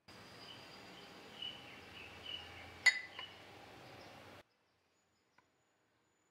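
A metal spoon clinks sharply once against a ceramic bowl, with a smaller clink just after, over faint room noise that cuts off abruptly a little over four seconds in.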